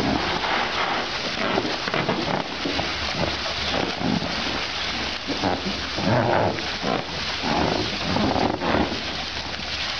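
Water from a hose spraying and splashing into an inflatable paddling pool as baby elephants roll in it, a steady hiss throughout. Short animal calls come through now and then, most of them in the second half.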